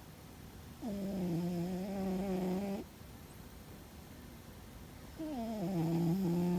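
Sleeping cat snoring loudly: two long, pitched snores of about two seconds each, a few seconds apart. Each one slides quickly up in pitch at its start and then holds.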